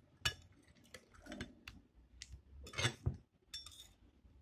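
Metal spatula scraping and clicking against a glass bowl while lifting out cut jelly cubes: a scatter of light clicks and scrapes, the loudest about three seconds in.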